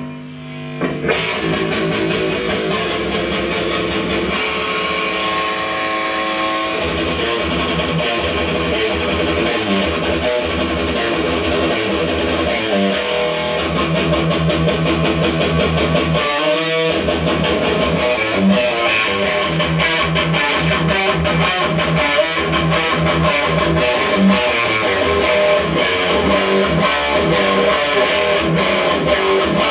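Electric guitar played through a Mesa Triple Rectifier Solo head on its high-gain red channel: continuous riffing with many quick picked strokes and a brief break about 17 seconds in. The amp is being played to test it after repair.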